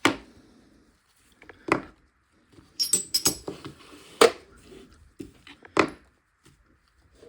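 Metal hand tools (crow's-foot wrenches and torque adapters) clinking and clattering against each other as they are handled in a toolbox: a handful of separate sharp clinks, a few of them close together near the middle.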